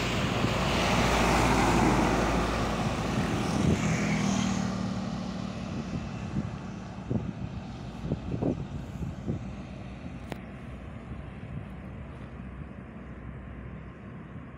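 Heavy three-axle tronton cargo truck passing close by: its diesel engine and tyre noise peak about two seconds in, then fade away over the next few seconds, leaving faint distant traffic.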